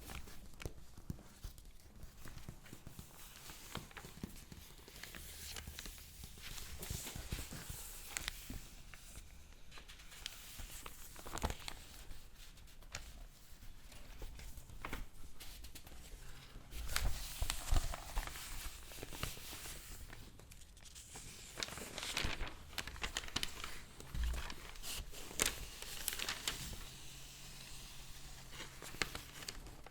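Paper being crinkled and rustled close to the microphone: a continuous run of crisp crackles and rustles, loudest a little past halfway.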